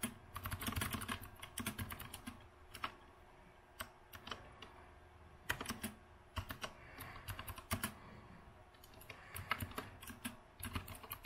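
Typing on an Azio Retro Classic (RCK) mechanical keyboard with round typewriter-style keycaps: quick runs of clicky, clacky keystrokes broken by short pauses.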